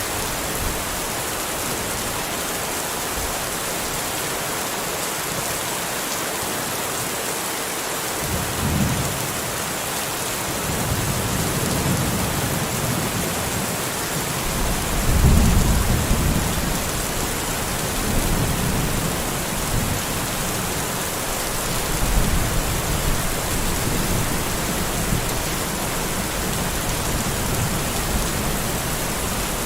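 Steady rain falling, with a long roll of thunder that starts rumbling about eight seconds in, swells loudest around the middle and rolls on in several waves before dying back under the rain.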